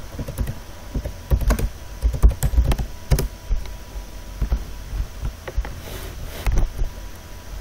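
Typing on a computer keyboard: irregular keystroke clicks, coming quickly for the first three seconds and then scattered.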